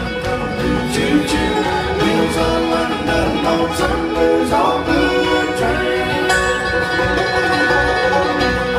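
Live bluegrass band playing an instrumental passage: banjo, fiddle, mandolin, guitars and dobro over a steady bass beat, with a long held high note in the last few seconds.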